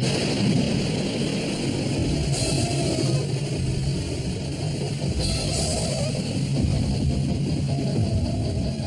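Dramatic rock-style background score with guitar and drums, running steadily.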